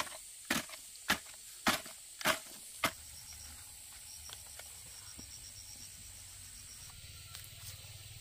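A series of five sharp knocks at a steady pace, a little under two a second, in the first three seconds. After that there is only a faint low hum with a faint, rapid high ticking.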